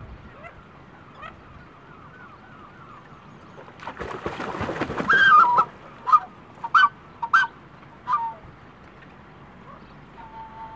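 Black-necked swan splashing and beating its wings in the water for a second or two, about four seconds in, followed by a series of about five short calls, the first the longest.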